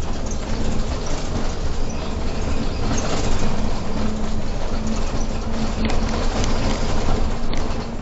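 Irisbus Crossway LE 12M bus under way, heard from the driver's cab: steady engine and road noise with a low hum.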